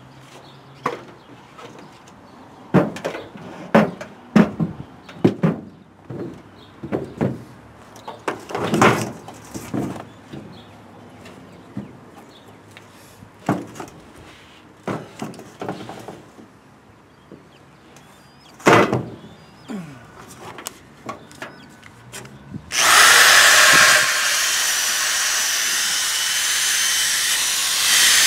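Scattered knocks, clunks and rustles of someone moving about and handling things in a pickup truck bed. About 23 seconds in, a small handheld electric power tool starts and runs steadily with a loud, high whir as it is worked against the truck's rusty bed rail.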